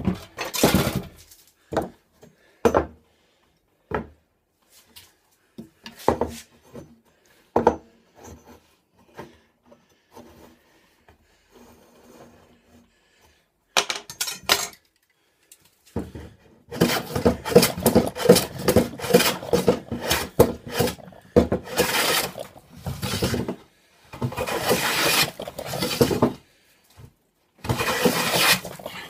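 Hand tool working a wooden beam: scattered knocks and clicks, then from about halfway several runs of rapid, rhythmic scraping strokes on the wood.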